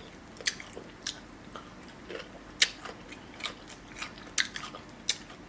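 Close-miked chewing of crisp cucumber, with sharp, wet crunches at irregular intervals, a little under a second apart.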